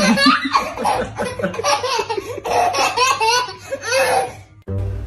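Baby belly-laughing in a rapid run of giggles. It cuts off shortly before the end.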